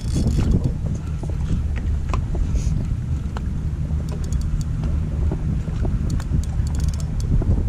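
Steady low rumble of a boat's engine idling, with wind on the microphone and a few faint, light ticks scattered through it.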